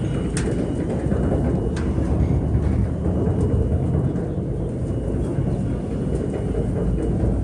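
Heavy machinery in a sawdust pellet plant running steadily with a deep, loud rumble and a faint high whine above it. There are two light clicks, about half a second and two seconds in.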